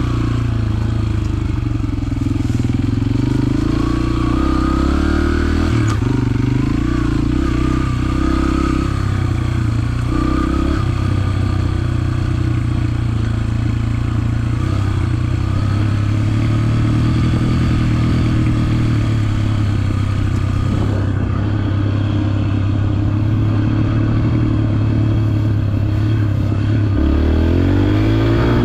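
Yamaha TT-R125 trail bike's single-cylinder four-stroke engine running under riding load, its pitch rising and falling for the first ten seconds or so, then holding steady before rising again near the end. Light rattling of the bike over the trail comes through under the engine.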